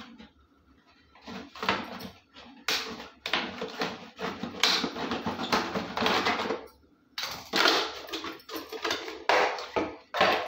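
Thin plastic water bottle crinkling and crackling in irregular bursts as it is cut open with a knife and handled. There is a brief pause about seven seconds in.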